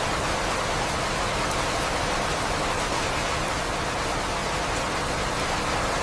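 Steady, dense rainfall: an even, unbroken hiss.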